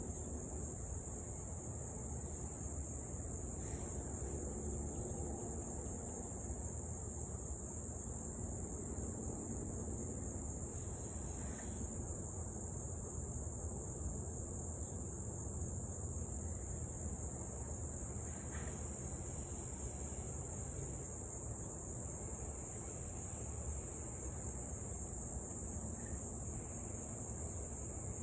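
Steady high-pitched chorus of insects, an unbroken drone over a low outdoor rumble, with no dog barking heard.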